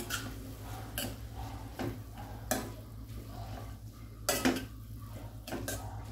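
Steel spatula stirring a thick potato-and-vegetable mixture in a stainless steel kadai. The spatula scrapes and knocks against the sides of the pan in sharp clinks about every second.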